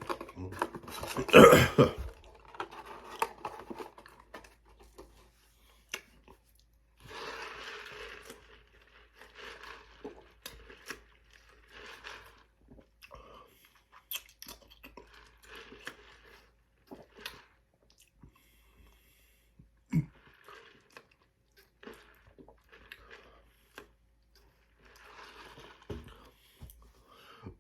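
Close-miked chewing and mouth sounds of a man eating, irregular wet smacks, soft crunches and clicks, with a loud burp about a second in.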